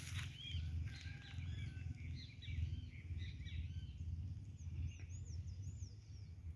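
Small birds chirping and calling, many short notes that rise and fall in pitch, with the highest run of calls in the second half. Underneath is a low, uneven rumble.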